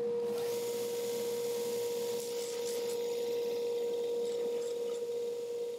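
JET combination belt and disc sander running with a steady hum, while a cast resin piece is sanded on it with a light, hissing rasp.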